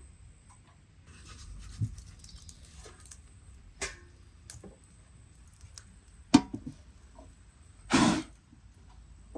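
A few separate knocks and clicks, the sharpest about six seconds in, then a short, louder clatter about eight seconds in, over faint rustling.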